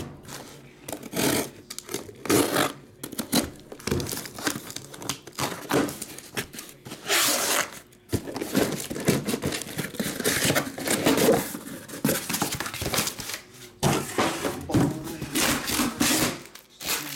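A cardboard shipping case of sealed trading-card hobby boxes being opened and unpacked by hand: cardboard flaps and tape rustling and tearing, and boxes scraping and knocking as they are pulled out and stacked, in irregular short bursts with a louder tear or rustle about seven seconds in.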